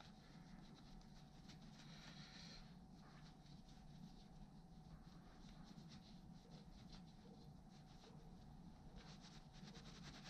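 Faint rubbing of a cloth rag wiping a small metal tool part, in two stretches: a couple of seconds in and again near the end, over a low steady room hum.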